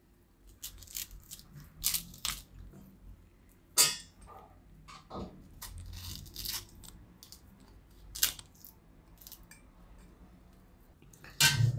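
A steel spoon scraping the pulp out of a halved bael fruit's hard shell and knocking it into a stainless steel bowl: irregular scrapes and sharp clinks a second or two apart.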